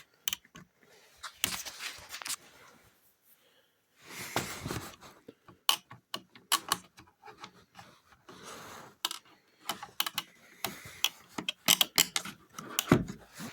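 Plastic side-mirror housing pieces being handled and fitted by hand: irregular light clicks and taps, with a few short scraping rubs of plastic on plastic.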